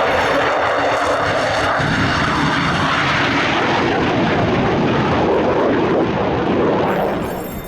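Jet noise from a Royal Netherlands Air Force F-16 fighter's engine: a loud, steady rush that begins to fade near the end.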